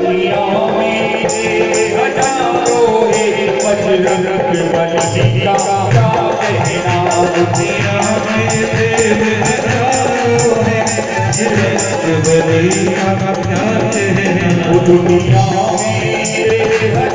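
Bhajan music from a small Indian devotional ensemble: dholak drum strokes and a keyboard melody, with crisp high percussion strokes keeping an even beat from about a second in.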